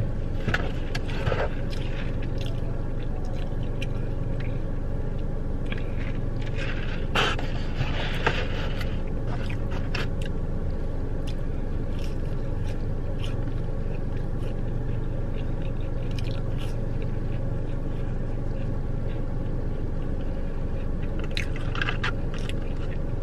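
Close-up eating sounds: chewing and crunching on fried chicken nuggets and fries, with scattered clicks and a few louder crackly rustles of paper food packaging. A steady low hum of the car's cabin runs underneath.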